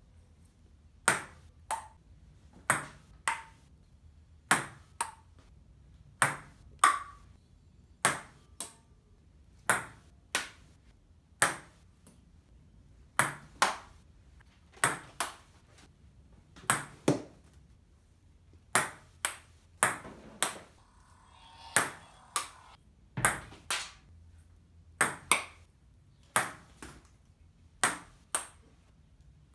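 Table-tennis ball being hit back and forth and bouncing on the table, some shots struck with improvised bats such as a clapperboard and a folding tray. The sharp clicks come in pairs, a louder click then a softer one, about every one and a half to two seconds.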